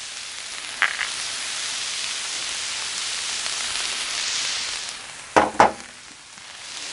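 Vegetables sizzling steadily in oil on a flat-top gas griddle. There is a brief click about a second in and two quick knocks about five and a half seconds in.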